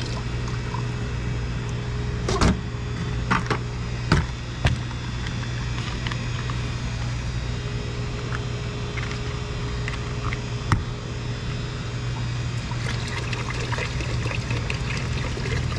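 Small pump running with a steady hum while descaling solution is flushed through a tankless water heater, with water pouring. A few sharp knocks come between about two and five seconds in, and one more near eleven seconds.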